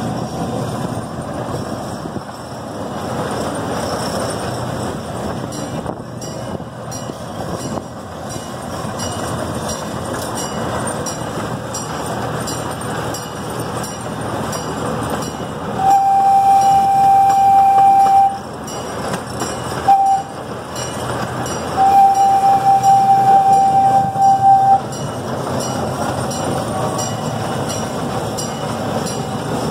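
C.P. Huntington miniature train running along its track, heard from a passenger car. About halfway through, its horn sounds a single steady note: a long blast, a short one, then another long one.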